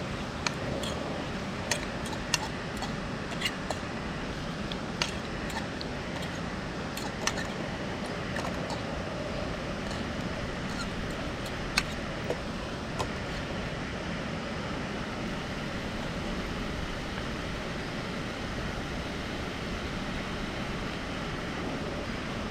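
Steady rush of cascading water, with a scattering of sharp clicks and taps through roughly the first half.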